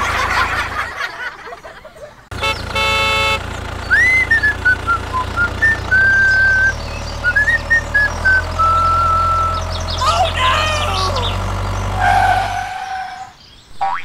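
Low, steady tractor-engine rumble laid over the toy tractors as a sound effect, with a short horn toot about two seconds in and high whistling chirps over the middle; the rumble stops shortly before the end.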